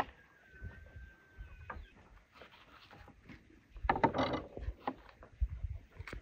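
Knife cutting vegetables on a wooden chopping board: scattered clicks and taps of the blade on the board, with a louder crunchy stretch of slicing about four seconds in as a green bell pepper is cut.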